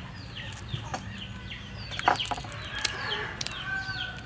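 Chickens clucking and chirping repeatedly in short falling peeps, with scattered clicks and one sharp crack about two seconds in from a cooked river prawn's shell being broken and peeled by hand.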